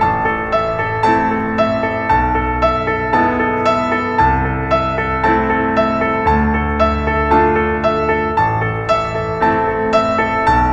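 Background piano music: an even run of notes, about two a second, over low bass notes that change every second or two.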